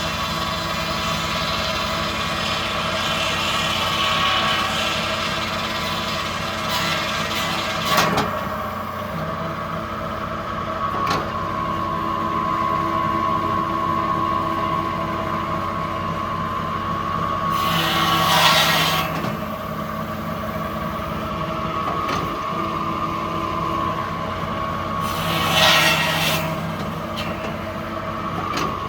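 Sawmill machinery running steadily with a constant mechanical hum. There is a sharp knock about eight seconds in, and two short hissing surges near 18 and 26 seconds.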